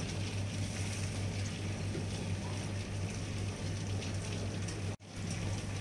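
Electric stone wet grinder running steadily, its drum turning against the stone roller as it grinds coarse peanuts and split chickpeas, with a constant low motor hum. The sound drops out for an instant about five seconds in.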